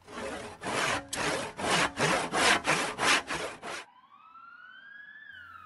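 Hand saw cutting through wood in a run of back-and-forth strokes, about three a second, that stop abruptly. About four seconds in, a siren starts, rising in pitch and then falling away.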